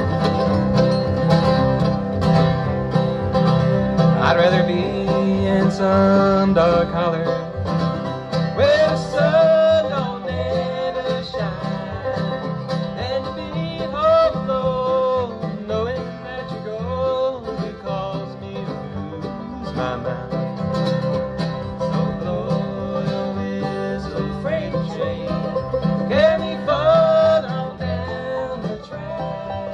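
Live bluegrass band playing: banjo, mandolin and acoustic guitar over an upright bass.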